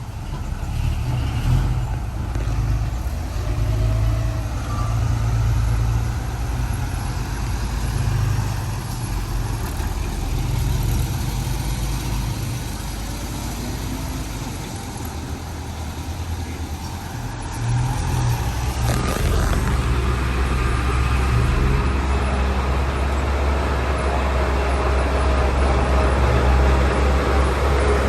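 Heavy diesel engine of earthmoving machinery running steadily, turning louder and heavier about two-thirds of the way through.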